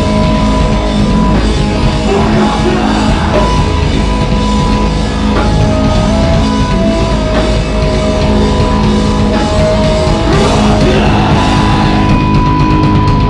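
Heavy metal band playing live and loud: distorted guitars holding long notes over pounding drums.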